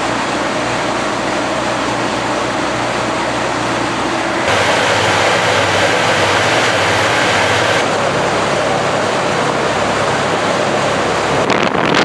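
Rescue lifeboats under way at speed: steady engine drone mixed with rushing water and wind. The sound changes abruptly twice, and from about a third of the way in to about two-thirds it is the drone inside the lifeboat's wheelhouse, with a thin high whine over it.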